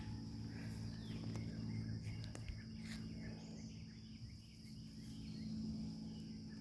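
Quiet outdoor ambience: a steady high insect drone over a low steady hum, with a few faint chirps.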